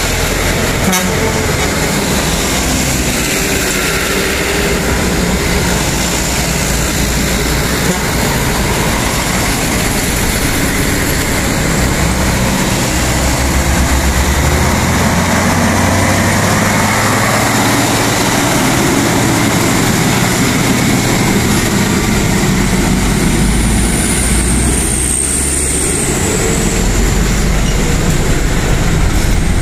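Heavy diesel trucks laden with sugarcane passing close by, one after another, their engines running loudly. A brief high whine rises and falls about three-quarters of the way through.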